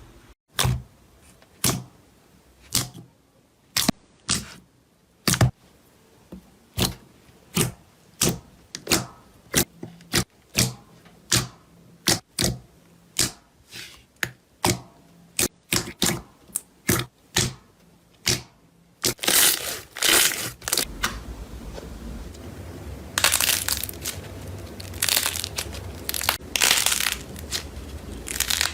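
Slime being pressed and poked, giving sharp separate pops about twice a second. About two-thirds of the way in it changes to a denser, continuous crackling and crunching.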